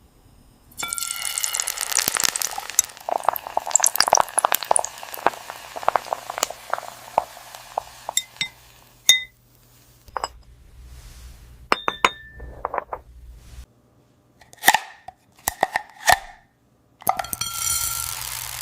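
Glass clinking and tinkling from AI-generated glass-food ASMR: a dense run of rapid, bright clinks through the first half, then sparser single taps, two ringing taps near the end, and a fresh rapid flurry at the close.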